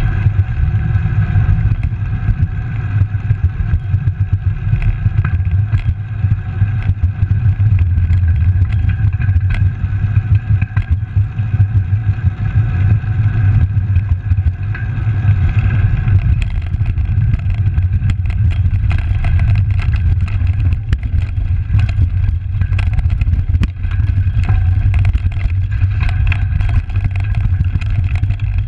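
Wind rumbling over a bicycle handlebar camera's microphone as the bike rolls along, mixed with tyre noise. Frequent short rattles and knocks come from the bike and camera mount jolting over bumps, more often in the second half.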